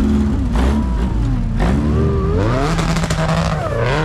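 Engine of a Suzuki-based off-road prototype 4x4 revving hard in repeated surges, its pitch climbing and dropping, with a few sharp cracks among the revs.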